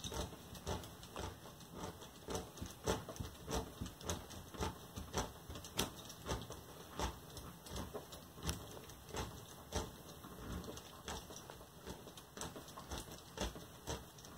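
Quiet, irregular clicking, a few clicks a second, from a Lego Technic mechanism turned by hand with a knob: plastic gears and a worm gear winding a string that slowly pushes out the forklift's scissor-extend forks.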